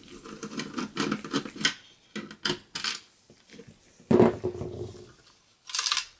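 Small metallic clicks and ticks of a Torx T15 screwdriver working a screw out of the motherboard in an HP mini PC's metal chassis. There is a louder knock with a short ring about four seconds in, and a brief scrape near the end as the chassis is moved.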